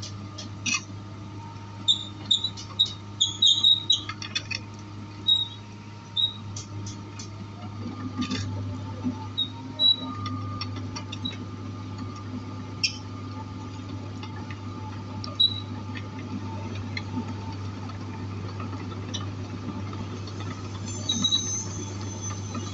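Diesel engine of a Komatsu PC200 excavator running steadily, with scattered short, sharp squeaks and clicks over it, thickest in the first few seconds and again near the end.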